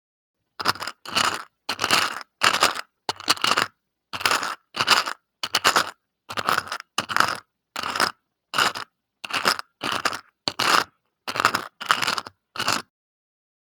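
A series of about eighteen short crunching, scraping sounds of small hard trinkets being handled, evenly paced at a little more than one a second, with dead silence between them and stopping about a second before the end.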